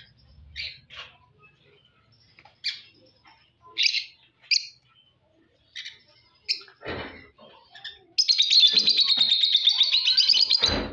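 Lovebirds calling in short, sharp, high chirps, then breaking into a loud, rapid, unbroken chatter about eight seconds in that lasts nearly three seconds. A dull thump comes about seven seconds in.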